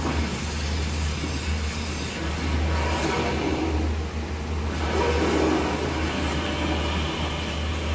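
Rumbling sound effects from an animated film's soundtrack playing through a TV speaker and picked up off the set, over a steady low hum, swelling about three seconds in and again about five seconds in.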